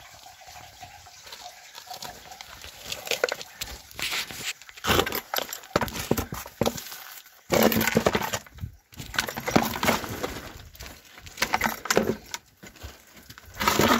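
Irregular crunching and clattering of loose rock and gravel being disturbed, coming in bursts that start a few seconds in and grow louder toward the end.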